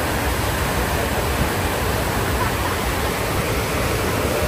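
Steady, unbroken rushing water.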